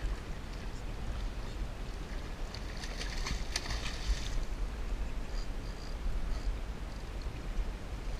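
Boat on open water: a steady low rumble, with a brief crackling burst about three seconds in.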